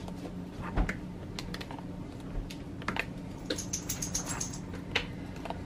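Irregular light clicks and taps of a spice jar as curry powder is shaken and tapped out into a plastic mixing bowl, with a quick rattle of small clicks about three and a half seconds in. A low steady hum runs underneath.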